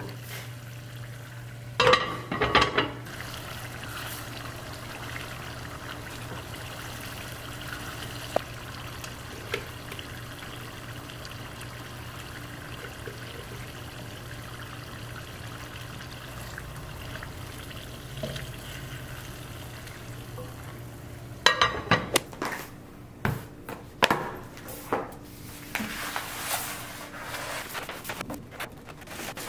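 A pan of sausage and shrimp in sauce simmering on a gas stove over a steady low hum, with a few knocks of utensils on the pan. About three-quarters through, brown kraft paper crinkles and rustles as it is unrolled across a wooden table.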